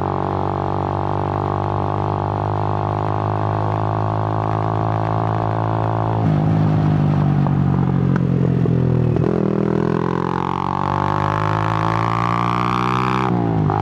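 Suzuki GN125 motorcycle's single-cylinder four-stroke engine running under way, a steady drone. From about nine seconds in the revs climb steadily, then drop sharply near the end as the rider changes up a gear.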